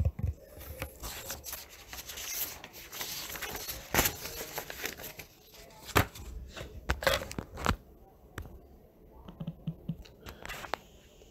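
Handling noise: rustling and scraping with scattered sharp clicks and knocks, the two loudest knocks about four and six seconds in.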